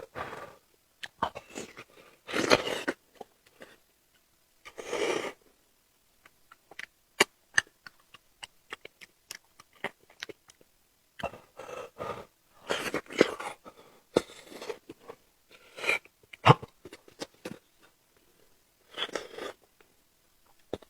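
A person chewing and eating close to the microphone: irregular sharp mouth clicks and crunches, with short, louder noisy bursts every few seconds.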